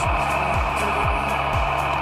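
Background music with a steady, driving beat of low drum hits.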